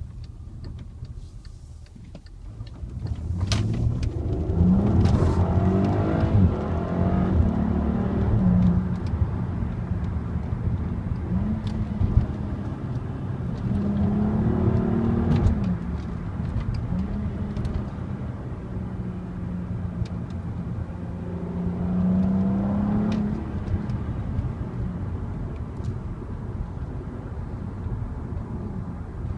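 Volkswagen Passat R36's 3.6-litre VR6 engine pulling the car through several accelerations. The engine note rises and then drops at each gear change, over a steady low drone.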